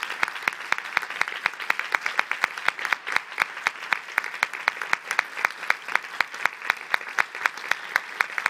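Audience applauding, with one person clapping close by in a steady, rapid beat of about five claps a second that stands out over the crowd.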